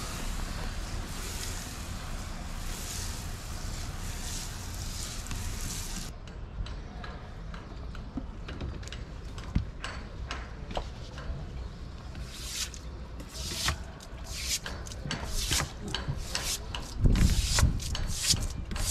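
Garden hose spray nozzle hissing as it sprays water onto a teak deck, stopping abruptly about six seconds in. Then a brush scrubbing the wet teak in short, repeated strokes, with a louder low rumble near the end.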